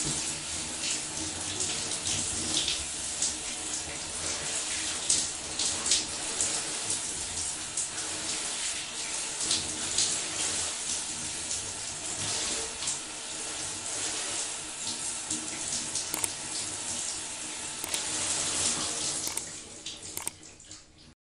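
Shower water running and splattering steadily, with frequent short splashes; it fades away in the last couple of seconds and stops.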